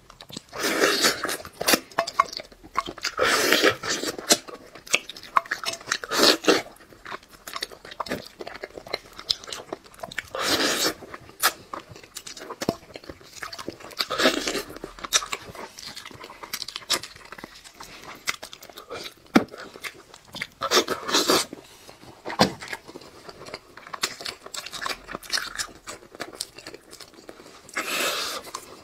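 A person biting and chewing food close to a clip-on microphone, with crunching. Bouts of loud chewing come in clusters every few seconds, with quieter mouth clicks between.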